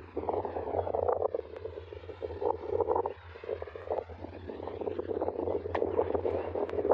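Frogs calling in a dense chorus of rapid, overlapping croaks from a lily-pad pond, with a steady low hum underneath.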